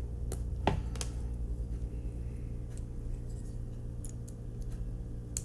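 A few light clicks and taps from small diecast car parts and tools being handled on a table, spaced irregularly, over a steady low electrical hum.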